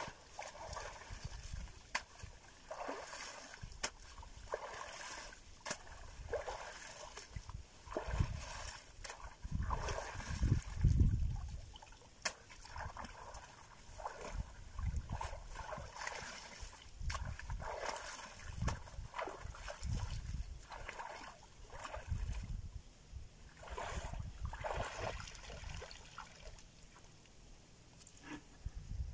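Shallow muddy water splashing and sloshing in irregular bursts as a person wades and gropes by hand for fish. A louder low rumble comes about ten seconds in.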